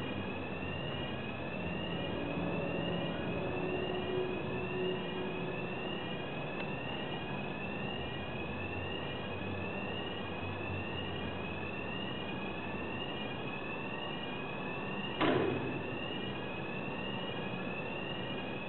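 Heavy material cableway in operation: a steady mechanical running noise with a high, rising chirp that repeats about once a second. A single short, louder sound falling in pitch comes about fifteen seconds in.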